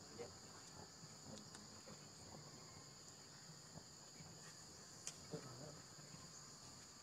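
Faint, steady, high-pitched drone of insects, with a few soft clicks and one sharper click about five seconds in.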